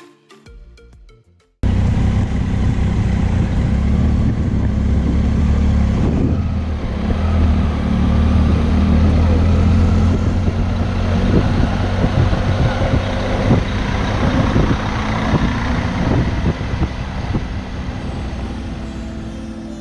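Triumph Tiger motorcycle riding, its engine running under wind noise on the microphone. The rumble cuts in abruptly about a second and a half in and eases off slightly near the end.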